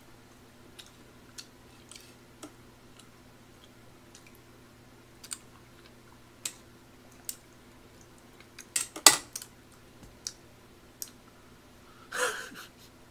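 Scattered small clicks and taps over a steady low hum, with a louder cluster of clicks about nine seconds in and a short noise near the end.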